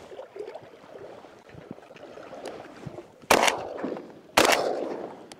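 Two shotgun shots about a second apart, each sharp and loud with a short echoing tail, fired at a passing duck; the second shot kills it outright.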